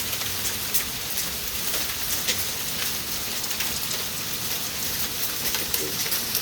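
Small hail falling with rain: a steady dense hiss with scattered sharp ticks of hailstones striking.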